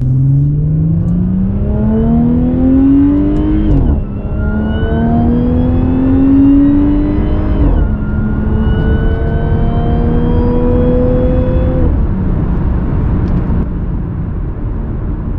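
Supercharged 3.0-litre V6 of an Audi S4 with an Integrated Engineering open-box intake, pulled hard through the gears, heard from inside the cabin. The engine note and supercharger whine climb in pitch and drop at two upshifts, about four and eight seconds in. The pitch falls away and settles as the throttle eases near twelve seconds.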